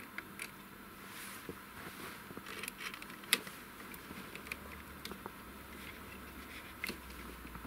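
Scattered small clicks and light knocks of hands handling cables and plastic connectors in a wheel loader's engine compartment, one sharper click about three seconds in. A faint low hum comes in about halfway through.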